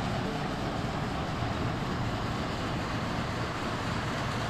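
Steady rushing of the Pulsnitz river's water at the town mill, an even hiss with no change.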